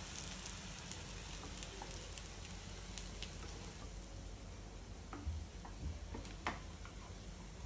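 Browned potato patties sizzling steadily as they shallow-fry in oil in a nonstick pan, with a few clicks of a perforated steel slotted spoon against the pan as the patties are lifted and turned, mostly past the middle.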